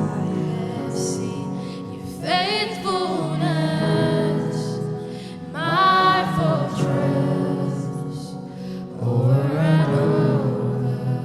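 Gospel worship song with sustained keyboard chords and a group of voices singing long phrases that swell in three waves.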